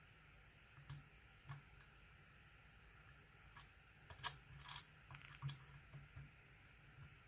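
Faint, scattered metallic clicks and ticks of a flat flag dimple pick working the pins of a DOM ix10 dimple lock under light tension, with a quick cluster of clicks about four seconds in.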